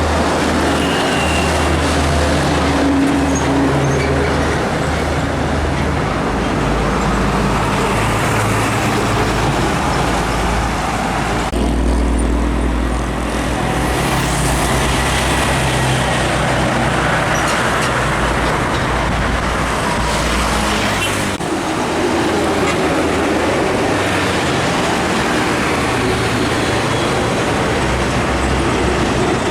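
Heavy highway traffic: large trucks passing close by, with their engines running and tyres on the road. The sound changes abruptly twice.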